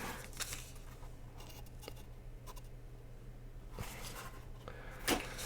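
Faint handling of cardboard packaging: light scratching and scattered small clicks, with one sharper click about five seconds in, over a steady low hum.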